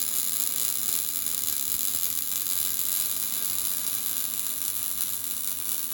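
Steady hiss with a low electrical hum, unchanging throughout.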